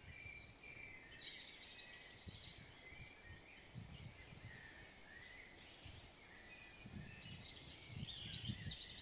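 Songbirds chirping and whistling in quick, scattered calls, busiest near the start and again near the end, over faint outdoor hiss with a few soft low rumbles.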